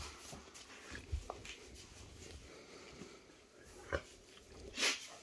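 Chocolate Labrador retriever sniffing and snuffling close by, with a light knock about four seconds in and a louder sharp sniff near the end.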